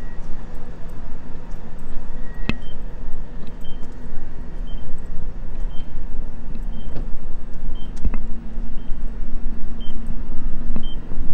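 Pågatåg electric multiple unit standing at the platform, with a steady hum and rumble from its running equipment and a couple of sharp clicks.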